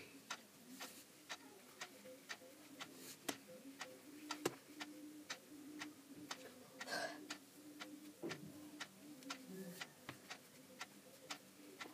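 Faint, even ticking a few times a second, with a soft rustle of ribbon being folded by hand about seven seconds in.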